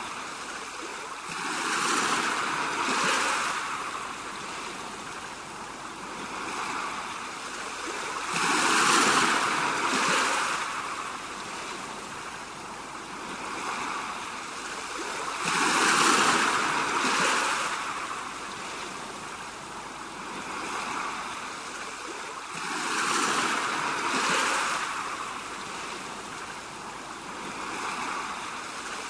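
Sea waves breaking and washing back, a steady rush of surf that swells into a loud crash about every seven seconds and eases between.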